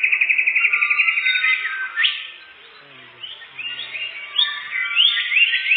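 Songbird singing: a fast, even trill for about a second and a half, then a string of quick rising whistled notes.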